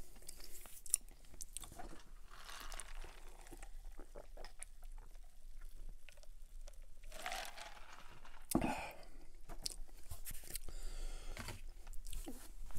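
Close-miked mouth sounds of eating and drinking: chewing with small crunches and clicks, and swallows as he drinks from a paper fast-food cup, with a few louder bursts partway through.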